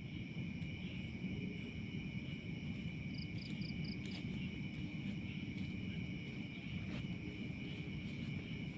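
Insects trilling steadily in a continuous high chorus, with a quick run of about five higher chirps about three seconds in, over a steady low rumble.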